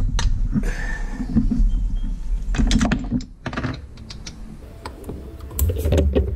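Irregular clicks and knocks of hand tools and parts being handled in a personal watercraft's engine bay, with a quieter lull about halfway through and denser clicking near the end.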